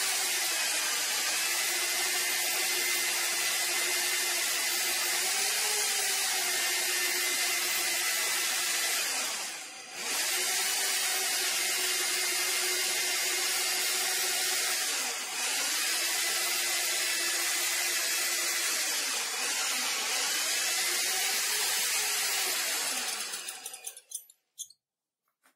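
Rotary hammer in drill-only mode, driving a homemade lathe drilling head as a twist drill bores through a metal disc. The motor runs with a steady whine whose pitch sags and recovers as the bit loads up, with brief dips about ten and fifteen seconds in, then winds down and stops near the end.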